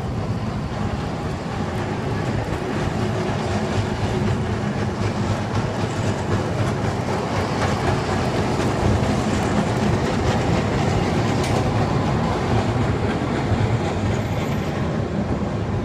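City street traffic: a loud, steady rumble of passing vehicles that builds slightly toward the middle.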